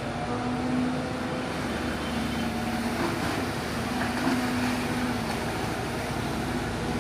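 Diesel engine of a JCB 3DX backhoe loader running steadily, with a wavering engine hum over a broad mechanical noise.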